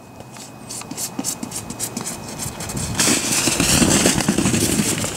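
A child's quick running steps, then from about three seconds in the steady rushing hiss of a sled sliding down packed snow.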